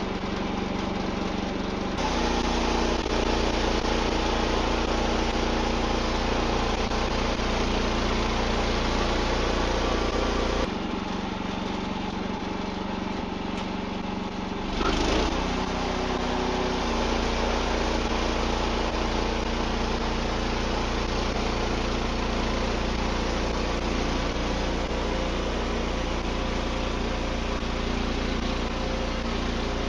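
Wood-Mizer LX55 band sawmill's engine running steadily. Its sound shifts abruptly a few times, with a brief louder moment about halfway through.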